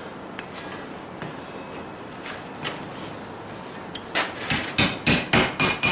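A few faint clicks of handling, then from about four seconds in a quick run of about eight hammer blows on hot steel at the anvil, the last ones ringing metallically. The blows drive the shank of a freshly forged hardy tool into the hardy hole of a cast-iron Vulcan 90-pound anvil.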